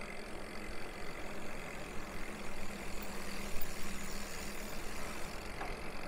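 Steady riding noise of mountain bikes rolling on a paved road: tyre hum and wind rush, with a faint steady hum through the middle.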